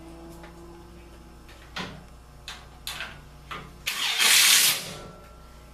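A few light clicks and knocks of handling, then a cordless drill driving a sheet-metal screw through the furnace cabinet's sheet metal in one loud burst of about a second, about four seconds in.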